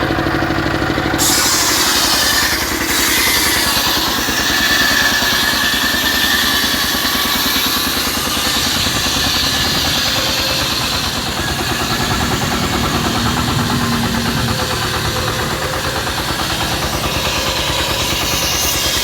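An engine-driven mobile circular saw running, then biting into a sengon log about a second in. The blade's hiss and whine go on over the engine's steady pulsing for the rest of the stretch.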